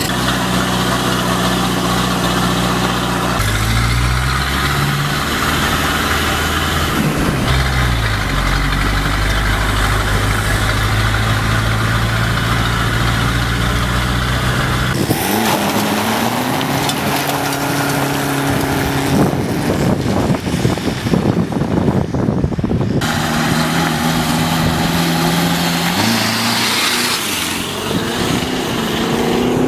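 Car engines on a gravel track, in several short clips cut together: a steady engine hum whose pitch rises and falls as the vehicles accelerate and change gear.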